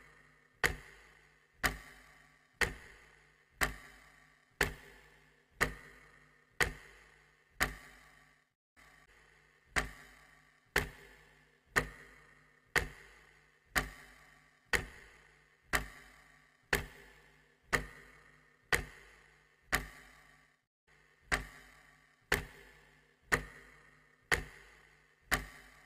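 A steady ticking, one sharp tick about every second, each with a short ringing tail. Twice the ticking skips a beat and leaves a short gap.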